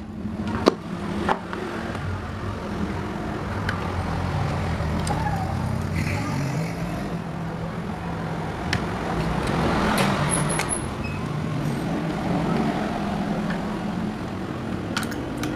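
A screwdriver and metal parts click and tap now and then while an electric fan motor's gearbox is screwed together. Under them runs a steady low mechanical hum.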